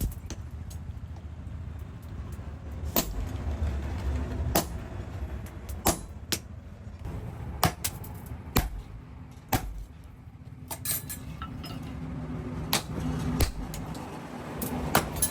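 Hammer blows on metal in blacksmith forging: about a dozen sharp strikes at irregular spacing, roughly one a second, some in quick pairs, over a steady low rumble.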